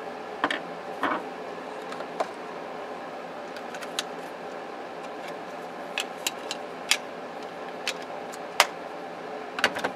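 Plastic clicks and taps of a Panasonic cordless handset's case being handled and fitted back together, about a dozen short sharp knocks at uneven intervals over a steady background hum.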